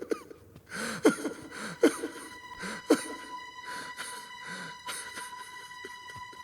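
A man's short, breathy chuckles and gasps, a forced laugh through distress. A soft held music note comes in underneath about a second in.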